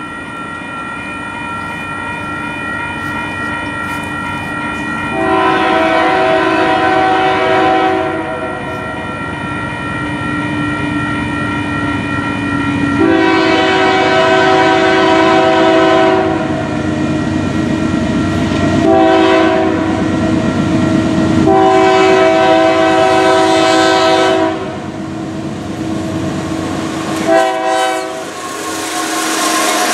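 Nathan K3HA three-chime air horn on a Union Pacific GE C44ACCTE locomotive sounding the grade-crossing signal: long, long, short, long, then a brief toot. The locomotive and train get louder near the end as they reach the crossing.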